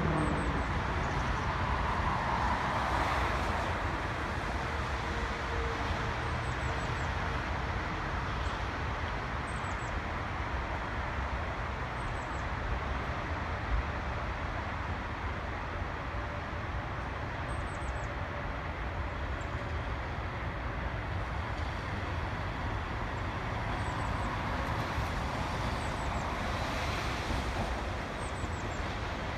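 Steady outdoor rumble of road traffic, with a few faint, very high chirps now and then.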